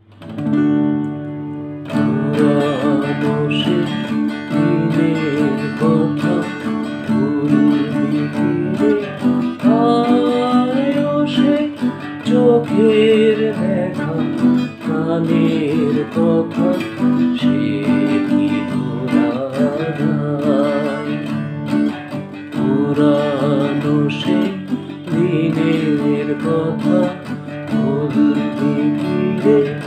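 A man singing a slow song while strumming a steel-string acoustic guitar. A chord rings on its own first, then strumming and singing start about two seconds in and carry on.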